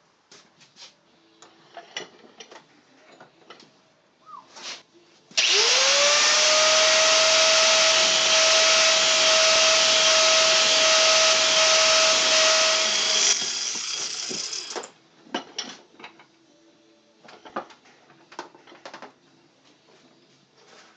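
A power tool sharpening a metal drill bit. Its motor spins up to a steady pitch under a loud grinding hiss, runs for about eight seconds, then cuts off and winds down. Small clicks and taps of the bit being handled come before and after.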